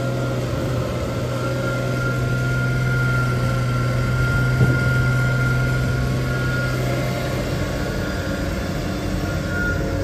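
Versa silage bagger running under load, feeding chopped alfalfa hay through its auger: a steady low machine drone. A thin whine comes in and fades in the middle, with a single knock about four and a half seconds in.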